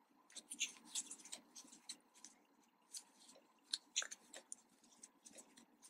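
Faint, scattered soft clicks and rustles of a 3.5 mm metal crochet hook pulling yarn through stitches, several small ticks a second, as a round of double crochet and chain stitches is worked.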